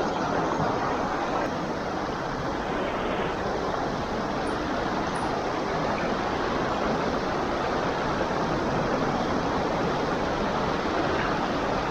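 Creek water rushing steadily over the stream bed, an even hiss with no breaks.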